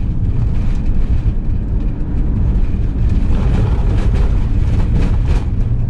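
Motorhome driving over a bumpy, patched road: a loud, steady low rumble of engine and tyres, with a few knocks as it jolts over the rough surface.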